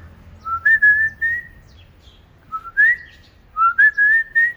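Whistling in three short phrases, each sliding up and then holding a clear, steady tone, with brief gaps between them.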